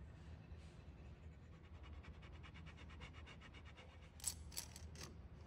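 Light ticking over a faint low hum, then three sharp clicks about a second apart near the end: one-handed bar clamps being slid and set on the glued walnut boards.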